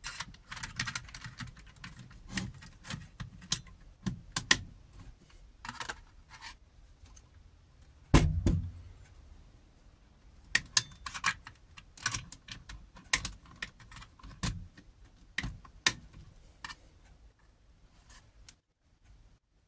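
Irregular clicks, taps and light metallic rattles as a saw blade and a homemade saw table are handled, with a heavier thump about eight seconds in. The saw's motor is not running.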